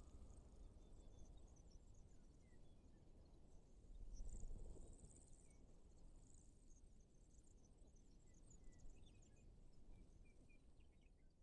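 Near silence: faint, scattered high-pitched chirps over a low rumble, with a slight swell about four seconds in, fading out near the end.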